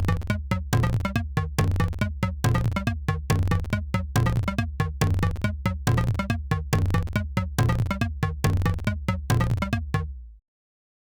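Electronic background music: a steady beat of about three hits a second over a sustained synth bass line. It starts right at the opening and cuts off suddenly about ten seconds in, leaving silence.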